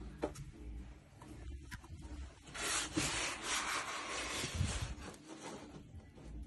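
Claws and feet scrabbling and rubbing on a plastic pet enclosure, loudest for about two and a half seconds starting a little over two seconds in.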